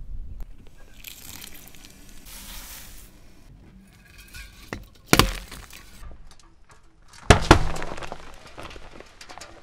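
A car tyre crushing aluminium soda cans: a sharp crack about five seconds in, then two loud pops a fraction of a second apart as the cans burst, followed by a couple of seconds of hissing soda spray.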